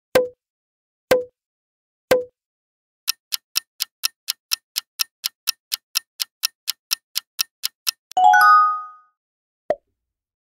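Quiz-show sound effects: three short pops about a second apart, then a countdown timer's clock ticking fast, about four ticks a second for five seconds. The ticking ends in a bright chime when time runs out, followed by one more short pop near the end.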